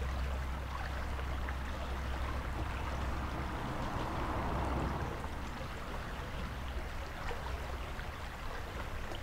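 Steady outdoor ambience: an even rushing noise with a low rumble that thins out about halfway through.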